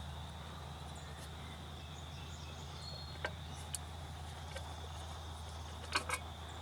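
Steady high insect drone of crickets over a low hum. A few light clicks and taps come from hands working on the small engine's air cleaner, two close together about six seconds in.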